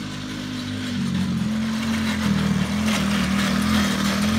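Small youth ATV's engine running as it is ridden, growing louder about a second in as it comes closer, its pitch wavering with the throttle.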